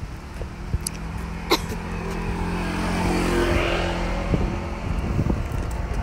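A car driving past, its engine hum and tyre noise swelling to a peak about three and a half seconds in and then fading. Wind rumbles on the microphone near the end.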